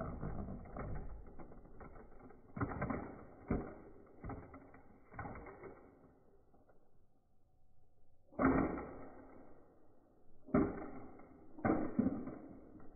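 Toy monster truck's plastic wheels and body rattling along concrete in surges, then three sharp knocks about two seconds apart as it crashes and tumbles over onto its roof.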